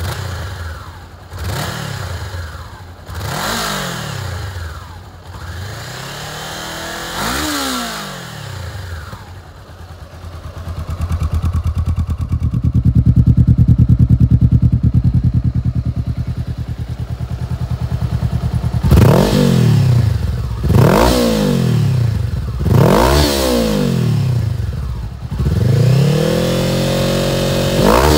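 2018 Honda CBR500R's 471cc parallel-twin engine blipped through a few quick revs on the stock exhaust, then idling loudly and revved four more times through a Yoshimura R-77 full-system exhaust with a carbon muffler, the last rev held for about two seconds.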